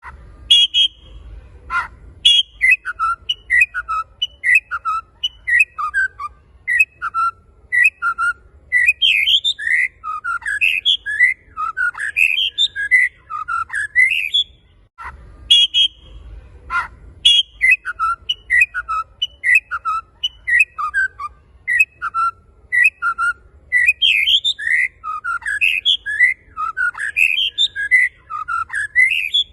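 White-rumped shama (murai batu) in full song: a fast, unbroken run of varied, sliding whistled notes. The same stretch of song starts over about halfway through, as in a looped recording.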